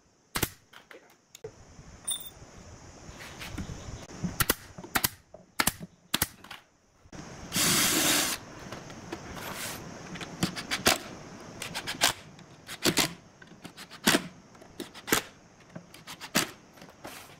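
Workshop hand work on wood: a string of irregular sharp knocks and taps, uneven in spacing and loudness, with a brief hiss lasting about a second near the middle.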